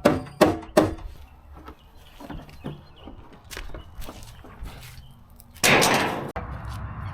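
Aluminium sheet being worked: three sharp, ringing metallic strikes in the first second, then a few softer knocks. Near the end a loud rush of noise cuts off abruptly.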